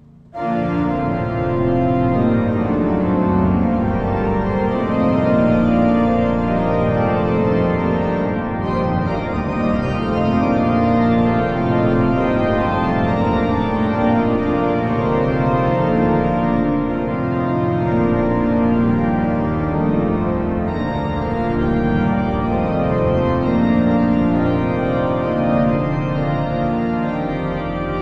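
Church pipe organ played with a full, loud registration: many sustained notes sound together in several moving parts. It comes in abruptly about half a second in and holds at a steady level.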